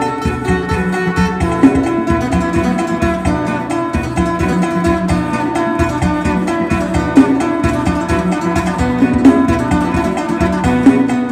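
Isan phin, the Northeast Thai plucked lute, playing a fast lam sing melody of quick plucked notes over a steady rhythmic backing.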